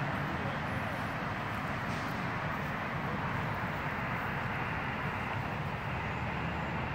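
Steady hiss and static from an HF transceiver's speaker between transmissions on the net, cut off above the receiver's narrow voice passband.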